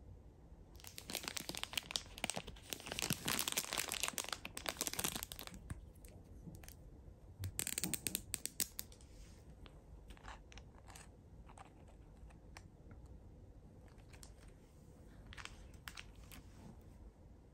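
Plastic amenity packaging and sachets crinkling and rustling as they are handled, loudest from about a second to five seconds in, with a shorter burst around eight seconds. Light taps and clicks follow as the items are set down.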